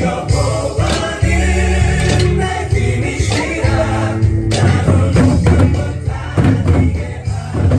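Korean contemporary Christian worship song with choir singing over a full band and a steady beat.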